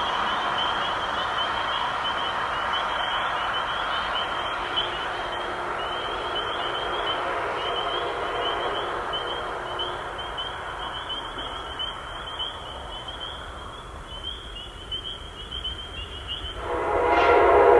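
Amtrak train running past, its rumble fading away over the first dozen seconds. Near the end the locomotive's air horn sounds loudly, a chord of several notes held on. A steady high chirring runs in the background.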